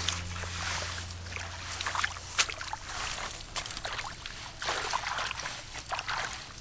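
Shallow muddy paddy-field water splashing and sloshing irregularly as a person wades through it and gropes in it with his hands.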